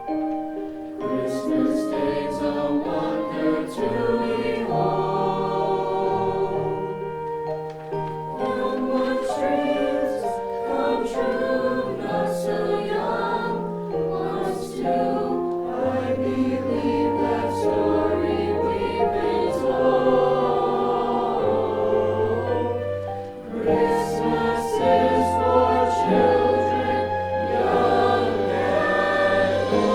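A high school choir singing in several parts, with low bass notes joining about halfway through.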